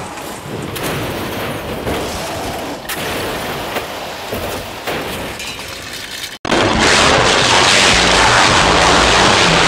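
Cars crashing and rolling over: crunching noise with several sharp bangs, then after an abrupt cut about six and a half seconds in, a louder, continuous crashing noise.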